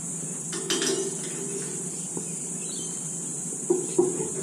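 Steady high-pitched insect chorus, with a few sharp metallic clicks and knocks from a spanner working on a jet engine's spark plug: one about a second in and two close together near the end.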